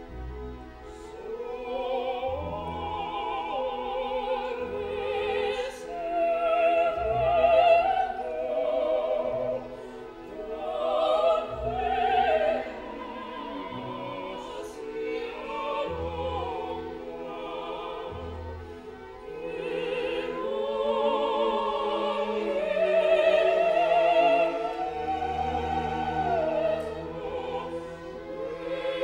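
Classical background music: a singing voice with wide vibrato over a sustained accompaniment with held low bass notes.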